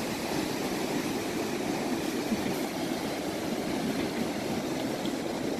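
Ocean surf washing onto a sandy beach: a steady, even rushing noise.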